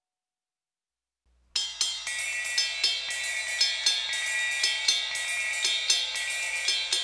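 Silence, then about a second and a half in a rock band's drum kit comes in, hi-hat and cymbals keeping a steady beat of about two hits a second. A sustained high ringing tone runs over it from about two seconds in.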